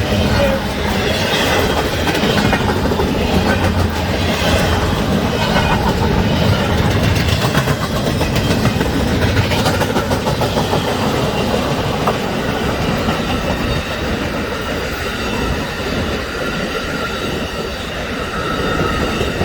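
Cars of an intermodal freight train (container cars and empty flatcars) rolling past at speed. The wheels make a steady, loud rumble and clatter on the rails.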